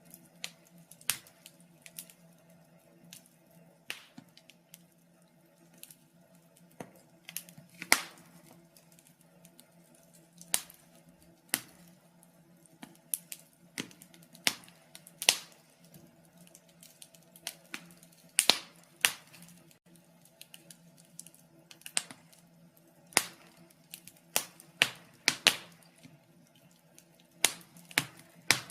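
Wood fire crackling: irregular sharp pops and snaps, a few much louder than the rest, over a faint steady background.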